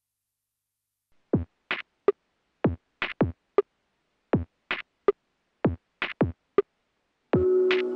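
Electronic background music: after about a second of silence a drum-machine beat plays alone, and sustained chords join it near the end.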